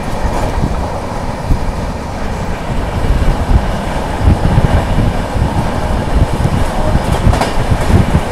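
Brindavan Express passenger coach running along the track, heard from on board: a loud, steady rumble of wheels on rail with a few sharp clacks.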